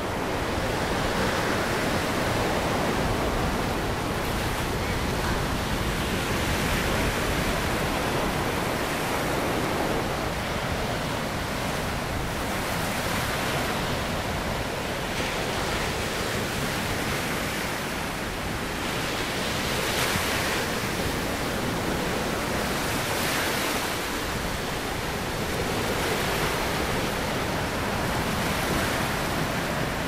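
Pacific Ocean surf breaking and washing ashore in a steady rush of noise that swells and eases as each wave comes in every few seconds.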